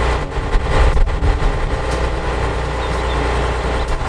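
Heavy tow truck's diesel engine running steadily at idle while its crane is worked.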